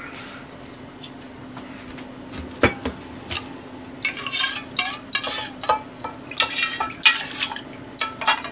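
A metal ladle, pan and small stainless steel bowl clinking and scraping against each other as leftover broth is ladled out: one sharp clink about two and a half seconds in, then a run of clinks and scrapes through the second half. A steady low hum runs underneath.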